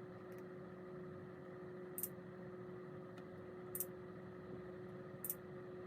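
Faint steady background hum with a few light clicks scattered through it.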